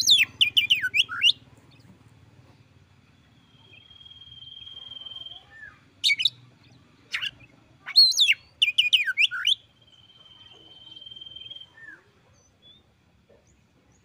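Oriental magpie-robin singing: bursts of rapid, steeply falling whistled notes alternating with two long, level whistles, then falling quiet near the end.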